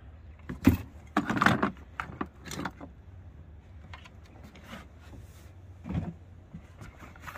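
Handling noise: clothes rustling and light knocks of plastic as things are moved on and around a plastic toy box, in a few short bursts, the busiest about a second in.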